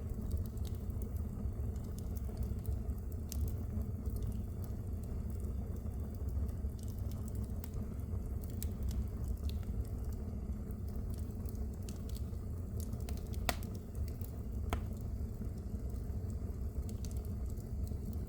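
Wood fire burning in a fireplace: a steady low rumble of flame with scattered sharp crackles and pops, and two louder pops about a second apart past the middle.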